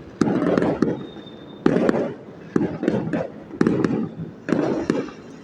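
Fireworks going off: a string of loud bangs, about one a second, each trailing into crackling.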